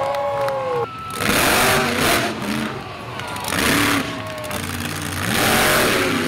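Monster truck engine revving hard in three loud surges, about a second in, midway and near the end. Its pitch rises and falls between the surges as the truck drives the course and launches over a row of crushed cars.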